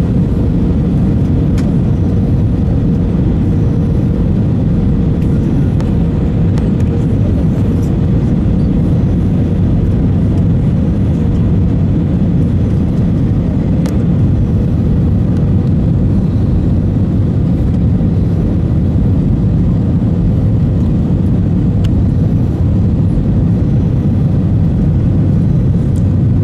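Steady cabin noise of a jet airliner on final approach, heard from a window seat over the wing: a constant low rumble of engines and airflow. A faint steady hum sits on top for about the first ten seconds, then fades.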